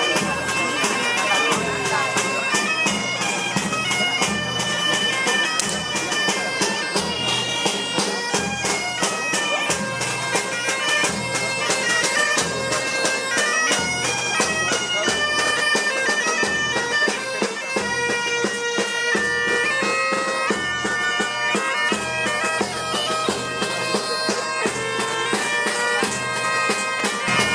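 Asturian bagpipes (gaitas) playing a processional tune, with snare drums beating along.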